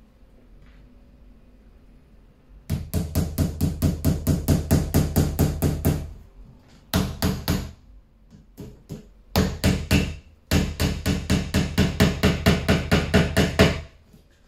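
Hammer driving small nails into a flat-pack bedside table: rapid runs of light taps, about five a second, starting about three seconds in, broken by short pauses and a few separate blows.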